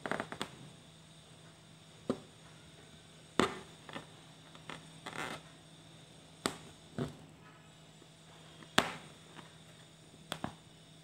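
Aari hook needle punching through fabric stretched taut on an embroidery frame as chain stitches are worked: about ten sharp pops and ticks at irregular intervals, each dying away at once.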